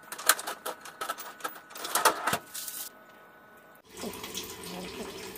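Rapid, irregular clicks and light taps, like small plastic parts being handled. They stop abruptly about three seconds in, and a steady low hum follows.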